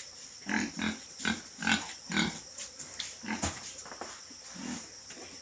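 Pigs grunting: a quick run of short grunts about two a second in the first couple of seconds, then a few scattered grunts and one sharp click.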